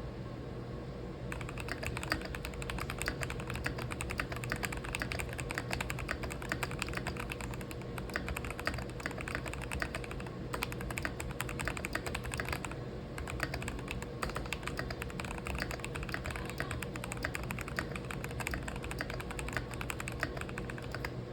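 Keychron V6 mechanical keyboard with stock brown tactile switches being typed on: fast, dense keystrokes starting about a second in, with a couple of brief pauses, over a faint steady hum.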